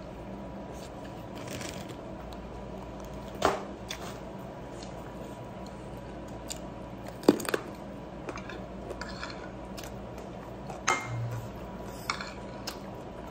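Someone eating rice by hand from a plate: quiet chewing and mouth noises with a few short sharp clicks and taps scattered through, the loudest about seven seconds in.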